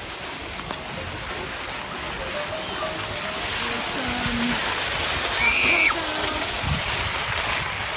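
A sled sliding fast over packed snow: a rushing hiss of snow under the runners that grows louder as it speeds up, with a brief high squeal about five and a half seconds in.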